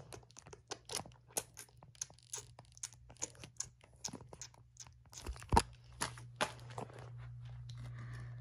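Close handling noise of a phone against fingers and a plastic toy dinosaur's mouth: irregular rubbing, scraping and small clicks, with a sharper knock about five and a half seconds in. After that a low steady hum is left.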